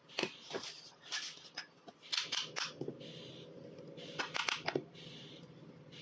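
A mallet tapping the iron and wedge into a wooden rebate plane body: a series of sharp knocks, with clusters around two seconds in and between four and five seconds.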